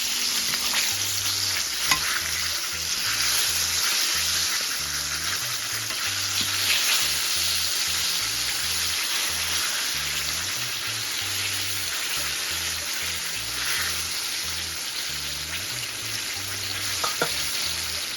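Chicken drumsticks frying in hot oil: a steady sizzle, with a couple of light clicks about two seconds in and near the end.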